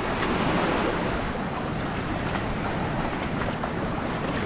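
Small sea waves washing steadily against the shoreline, with wind rumbling on the microphone.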